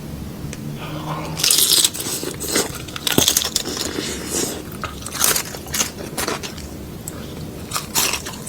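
Crunchy food being bitten and chewed in a run of crisp crunches. The loudest bites come about one and a half seconds in, then around three, five and eight seconds.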